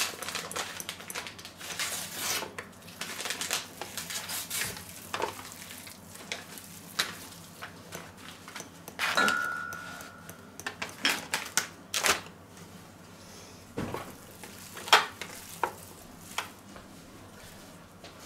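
Hands mixing seasoned raw pork pieces in a stainless steel tray, with scattered knocks and clinks of the meat and fingers against the metal. A brief steady high tone sounds about nine seconds in.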